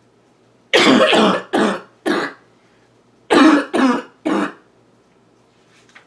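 A girl's harsh barking cough, in two fits of three coughs each. The first cough of the first fit is the longest.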